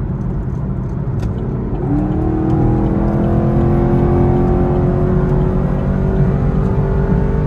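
Chevrolet Camaro SS V8 heard from inside the cabin, accelerating hard in one long gear over a steady road rumble. About two seconds in, the engine note comes up and then climbs slowly and evenly in pitch as the speed builds.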